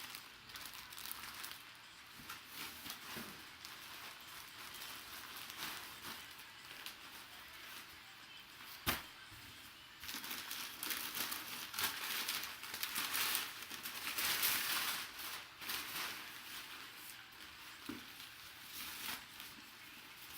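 Plastic packaging crinkling and rustling as items are handled and unwrapped by hand, louder and busier in the second half, with one sharp click about halfway through.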